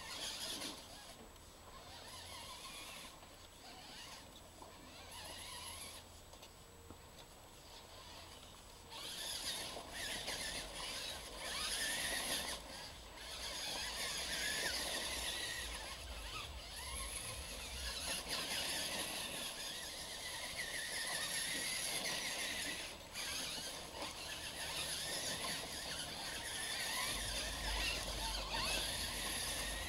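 Electric radio-controlled monster trucks driving over dirt, their motors and gears making a high whine. It is faint for the first several seconds, then louder and surging from about nine seconds in.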